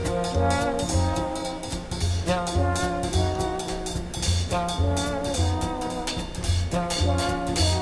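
Jazz music with brass horns playing a melody over a steady drum and bass beat.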